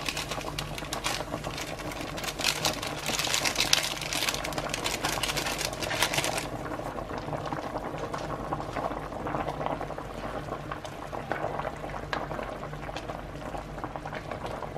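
Pork sinigang broth boiling hard in a pot, a steady bubbling. For the first six seconds or so a louder rustling hiss, tamarind soup mix powder shaken from its packet into the broth, stops suddenly.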